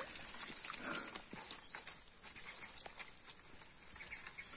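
Insects buzzing steadily at a high pitch, with scattered small clicks and knocks over the top.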